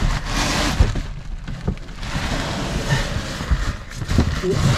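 Rustling handling noise with a few short knocks as things are shifted about by hand.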